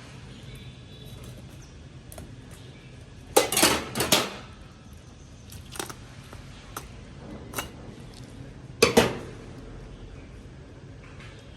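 Kitchen dishes and utensils clattering as they are handled: a quick run of loud knocks a few seconds in, a few light clicks, then another loud clatter later on.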